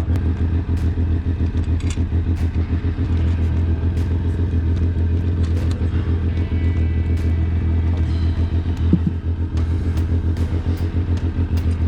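A motor vehicle's engine running steadily nearby, a deep even rumble with a quick regular pulse.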